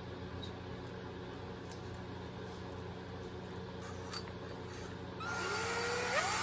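A few small clicks of handling over a low steady hum, then about five seconds in a cordless drill starts up, its motor whine rising in pitch, together with the loud hiss of a cylinder hone spinning in the Honda SL100's cylinder bore.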